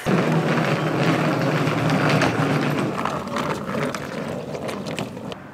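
Rolling suitcase wheels rumbling over a concrete sidewalk, with scattered clacks and footsteps, growing fainter as it moves away.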